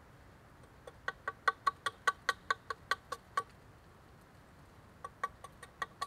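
Small axe striking a split log in quick, light, evenly spaced chops, hewing its face flat for a floor: a run of about a dozen sharp hits at roughly five a second, a pause, then a shorter run of about six near the end.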